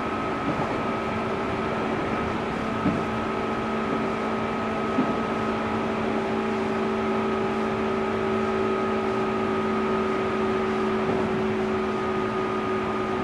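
Running noise heard inside a JR East 205-series electric train's motor car with externally ventilated MT61 traction motors, moving at a steady speed between stations. Several steady tones from the drive hold a constant pitch over the running noise. A few short knocks come about half a second, three and five seconds in.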